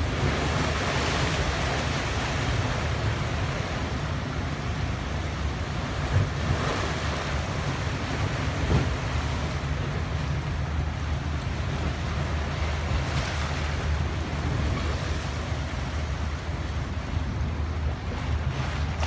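Sea waves surging against a stone seawall and washing across a flooded waterfront promenade, in surges of splashing every few seconds, the biggest at the start. The surge is a wake that the uploader was told came from a passing submarine. A steady low wind rumble on the microphone runs underneath.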